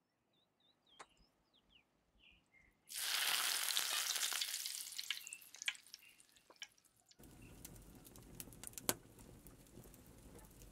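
Empanadas deep-frying in a pot of hot oil: a loud sizzle starts suddenly about three seconds in as the dough goes into the oil, then dies down over the next few seconds. After that a quieter steady hiss runs on with scattered crackles.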